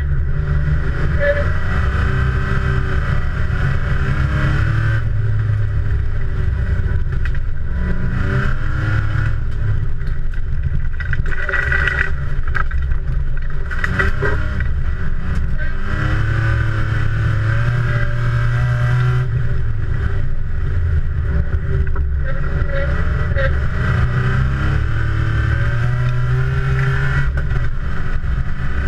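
Racing car's engine heard from inside the stripped, roll-caged cabin, loud and under load, its pitch repeatedly climbing and then dropping back as the driver accelerates, shifts gear and lifts for corners.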